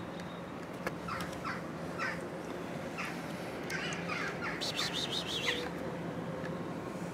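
Short harsh animal calls repeated about once a second, several in quick succession a little past the middle, over a faint steady hum.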